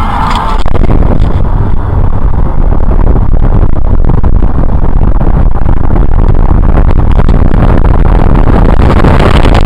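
Loud, steady low rumble of a car moving in traffic, engine and road noise heard from inside the vehicle.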